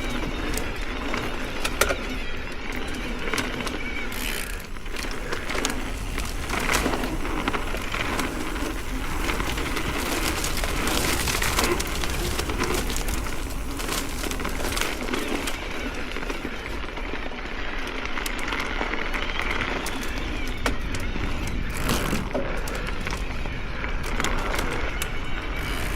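Ibis Oso electric mountain bike ridden over a dirt trail: tyres crunching over dirt and rocks, with frequent clicks and rattles from the bike and a steady low rumble.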